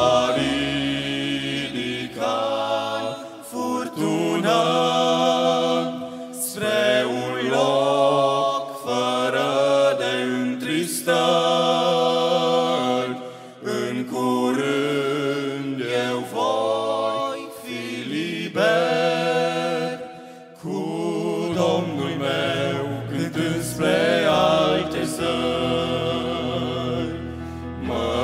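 Male vocal quartet singing a Romanian gospel song in close harmony, in sustained phrases of about one to two seconds each with short breaths between.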